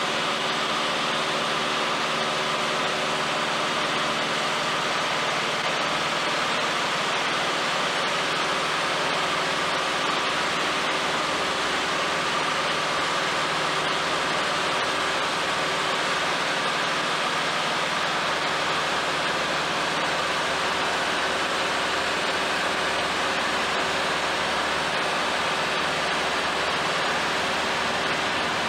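Light aircraft's piston engine and propeller running steadily, heard from inside the cabin as a constant drone with a rushing wind hiss over it.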